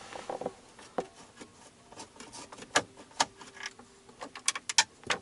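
Scattered small clicks and taps at irregular spacing from a hand tool working the 7 mm bolts out of a pickup truck's plastic dash trim, bunched closer together near the end.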